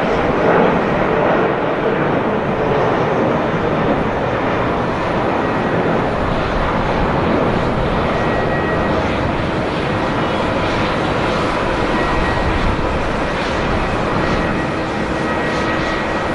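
Boeing 767-300's twin jet engines at takeoff power as the airliner climbs away: a steady, dense jet roar.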